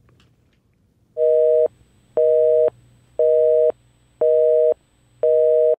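Telephone busy signal: five half-second beeps of a steady low two-note tone, about one a second, starting about a second in.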